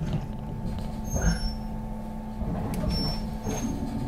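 Interior sound of a JR West 221 series electric train just starting to pull away from a station stop: a steady low hum, a brief knock about a second in, and the running sound building from about two and a half seconds in as the train gets moving.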